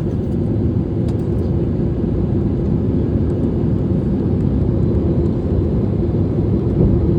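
Steady engine and airflow noise inside an airliner cabin on approach to landing, a low even rush with a steady hum.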